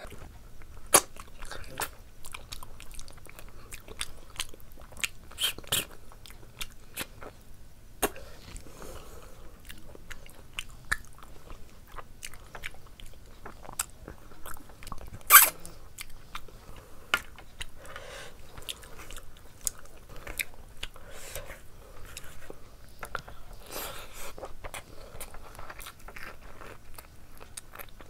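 Close-up mouth sounds of a person eating curry meat by hand: chewing and biting, with frequent sharp clicks and smacks and one louder snap about fifteen seconds in.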